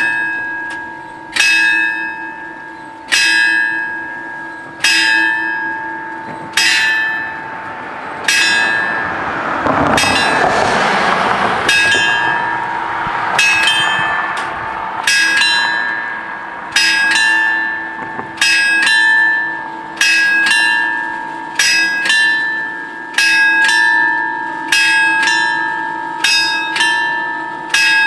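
Italian FS 64 level-crossing warning bells striking over and over, each strike ringing on, about one every second and a half at first; in the second half a second bell's strikes fall just after the first's, so they come in pairs. About ten seconds in, a rushing noise swells and fades under the bells.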